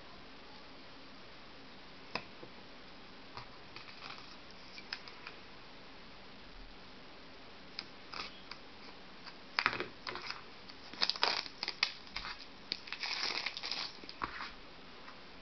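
Plastic shrink-wrap on an iPhone 4 box being slit with a knife and pulled off: scattered light scratches and clicks, then a run of louder crinkling in the second half.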